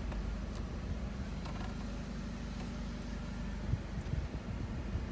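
Mercedes SLK 200's four-cylinder engine idling steadily, heard from inside the cabin, with a few faint knocks about four seconds in.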